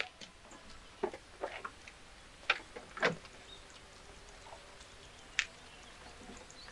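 A few sharp clicks and light knocks at irregular intervals, the loudest about three seconds in, from handling at the car's open engine bay.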